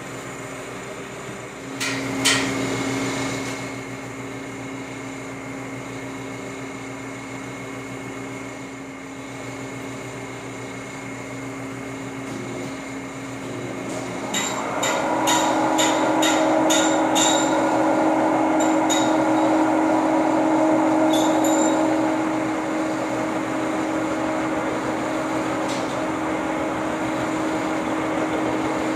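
Lucas model 41 horizontal boring mill running with a steady machine hum. A sharp metal knock comes about two seconds in and the hum changes pitch; about halfway through, a quick run of metallic clicks and clanks sounds and the machine gets louder for several seconds before settling back to a steady hum.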